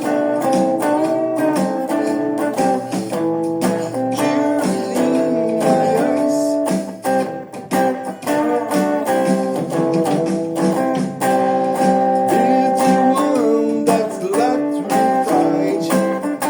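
Guitar music: a guitar playing a busy run of quickly plucked notes.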